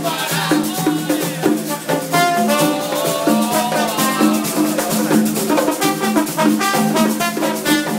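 Live plena music: several panderos (hand-held frame drums) beating a driving rhythm, with voices singing over the drums.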